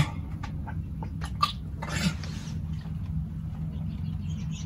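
Dog gagging and retching in a few short bursts after gulping water too fast, as if about to throw up.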